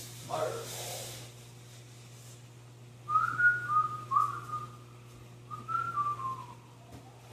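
A person whistling a short tune, two brief phrases a couple of seconds apart, over a steady low hum.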